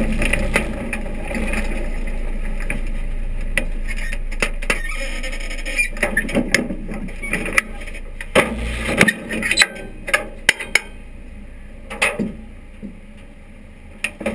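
Vintage stock car engine running at low speed as the car rolls slowly through the pits; the engine sound dies down about two-thirds of the way in. Over it come a string of sharp clicks and knocks from the cockpit, with a last couple near the end as the quick-release steering wheel is pulled off.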